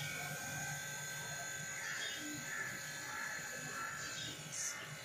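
A steady electric hum from a small motor running, with a brief hiss near the end.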